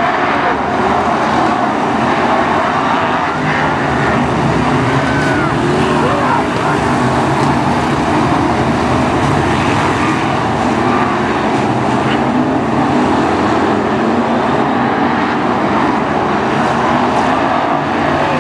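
Several BriscaF1 stock cars' V8 engines running together as the pack laps the track. The engine pitch rises and falls from car to car, over a continuous mass of engine noise.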